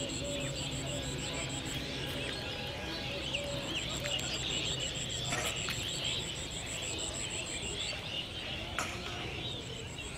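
Birds chirping and twittering all through, with an insect's high, rapidly pulsing trill that breaks off for a second or so about two seconds in and again near eight seconds in.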